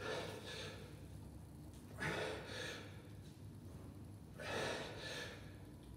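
A man breathing hard from the effort of one-arm kettlebell cleans and presses, with a few sharp, loud exhales about two seconds apart.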